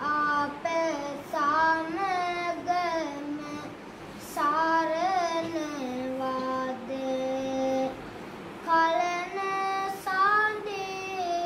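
A young novice monk's solo voice singing Sinhala kavi bana, a Buddhist sermon in sung verse: long held notes with wavering ornaments, in phrases with short breaths between, dipping to two long lower notes in the middle.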